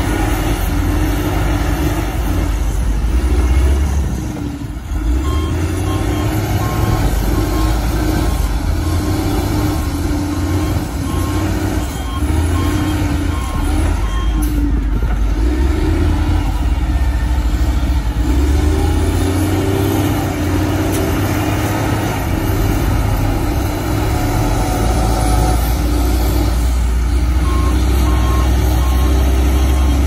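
XCMG LW500FV wheel loader's diesel engine running steadily under load as it pushes and scoops earth with its bucket, with a heavy dump truck's engine alongside. A reversing alarm beeps steadily from a few seconds in for several seconds, and again near the end.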